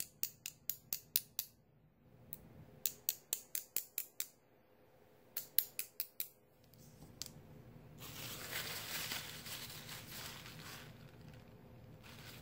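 Paintbrush tapped against the edge of a clear acrylic stamping block to spatter ink droplets: three quick runs of sharp clicks, about five a second, then one more tap. From about eight seconds in, a soft, steady rustle as a dry paper towel blots the excess ink.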